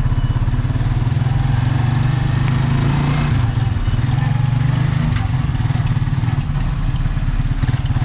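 Motorcycle engine of a Philippine motor tricycle running steadily under way, heard from inside its sidecar.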